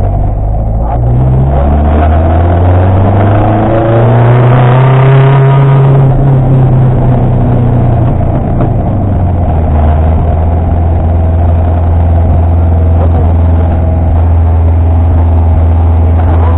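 Rally car engine heard from inside the cockpit, revving up from about a second in, easing back around six seconds in, then running steadily at speed.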